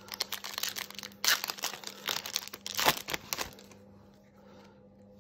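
Foil wrapper of a Yu-Gi-Oh! Maximum Gold booster pack crinkling and being torn open by hand, a run of crackly rustles with the loudest about a second and about three seconds in. The rustling stops about three and a half seconds in, leaving only faint handling of the cards.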